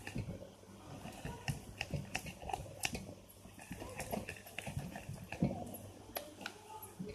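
Clear-glue slime being stirred in a container: irregular sticky squelches and small clicks as the mixture pulls and snaps.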